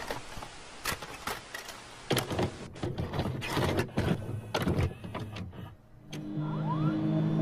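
Sound effects under an animated intro logo: a string of irregular sharp clicks and crackles, then a low steady hum that sets in about six seconds in, with a short rising glide.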